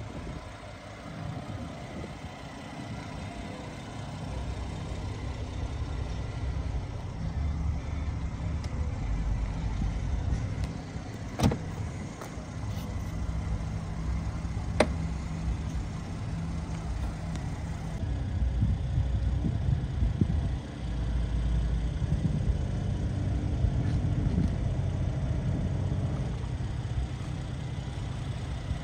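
Mercedes SL400's turbocharged V6 idling steadily, a low rumble, with two sharp clicks about 11 and 15 seconds in.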